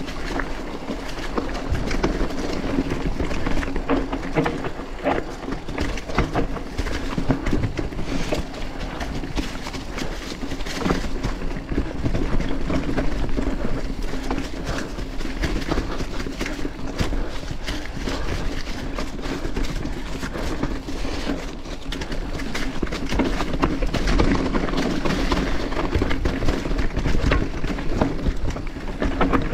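Mountain bike descending a rough trail through dry fallen leaves: tyres rolling and crunching over leaves, rock and roots, with a constant stream of rattles and knocks from the bike over a steady low hum.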